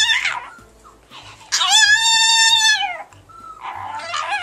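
Chihuahua howling in drawn-out, high-pitched calls that mimic the words "I love you": the tail of one call at the start, one long call of about a second and a half that rises and then falls in pitch, and another starting near the end.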